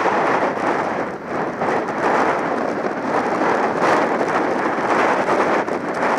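Heavy storm surf breaking on rocks: a loud, continuous rush of crashing waves and foam, mixed with strong wind buffeting the microphone.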